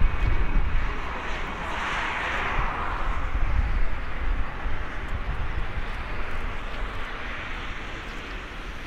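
Boeing 777F's twin GE90 turbofan engines running: a steady jet rumble with a hiss that swells about two seconds in, then slowly fades.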